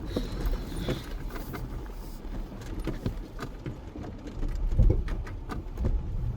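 Jeep creeping slowly across a rocky creek bed: a low engine rumble with scattered knocks, clunks and rattles as it goes over the rocks, with heavier thumps about five seconds in.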